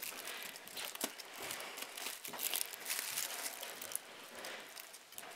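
Pink tissue paper and gold metallic gift ribbon crinkling and rustling in irregular small crackles as hands untie the ribbon's knot on a wrapped package.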